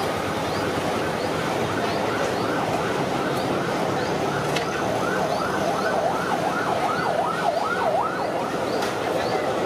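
Electronic siren yelping in rapid rising-and-falling wails, about three a second, loudest and widest in pitch in the middle of the stretch, over steady street traffic noise.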